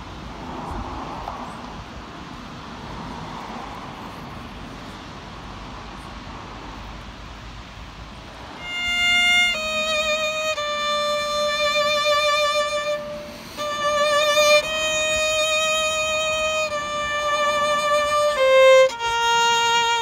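A steady rushing outdoor noise for the first half, then a violin comes in about nine seconds in, bowed in slow, long held notes with vibrato, stepping to a lower note near the end.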